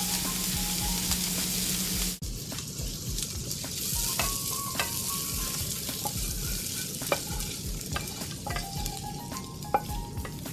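Food sizzling in a hot skillet as a sauté of chickpeas, artichokes and mushrooms is stirred; about two seconds in the sound cuts abruptly to a quieter sizzle, with a wooden spoon scraping and tapping the food out of the pan into a serving dish.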